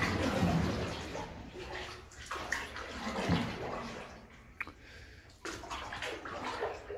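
Canoe paddle strokes splashing and dripping in still water, a swell of water sound roughly every second, echoing off the walls of a stone-lined tunnel.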